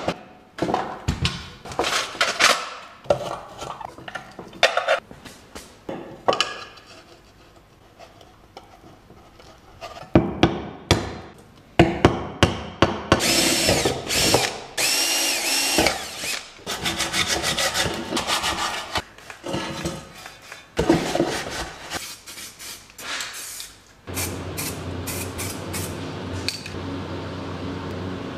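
Workshop tool noises: a run of sharp clicks and knocks as metal parts of a floodlight housing are handled and taken apart, then a cordless drill running in several short bursts on the metal floodlight housing, with a steady low hum near the end.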